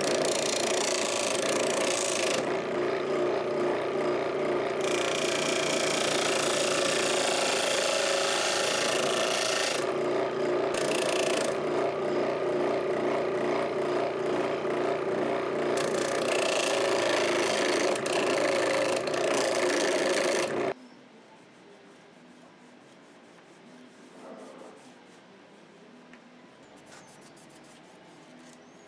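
Homemade disc sander running with a steady motor hum, and a rasping hiss that comes and goes as a sandal sole's edge is pressed against the spinning sanding disc. The sound cuts off abruptly about two-thirds of the way through, leaving only faint handling sounds.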